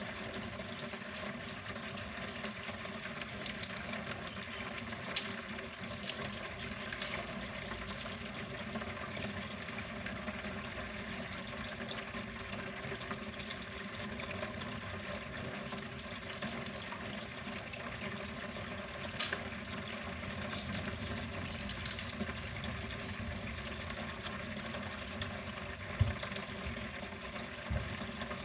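Water flowing steadily in a continuous even rush, with a few brief sharp sounds standing out above it.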